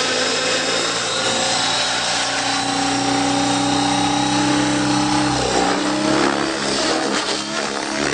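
Radio-controlled helicopter flying, its motor and rotor whine running steadily. After about five seconds the pitch dips and rises again as it manoeuvres.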